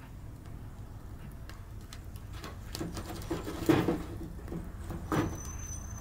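Wood fire crackling in a small metal stove, with a few knocks as sticks are pushed into the firebox around the middle and again about five seconds in. A thin, steady high whistle begins near the end.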